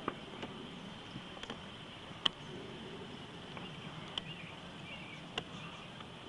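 A handful of short, sharp taps or clicks, the loudest about two seconds in, over a steady faint hiss and hum.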